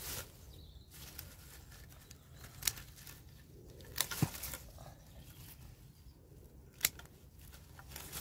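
Hand secateurs snipping through Russian vine stems, a few sharp clicks over the rustle of leafy stems being pulled and handled.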